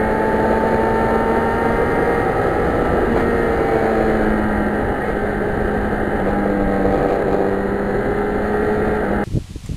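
Yamaha FZR1000 inline-four engine running at a steady cruise with little change in pitch, under heavy wind rush over the bike-mounted microphone. The sound cuts off abruptly near the end to a much quieter rustling.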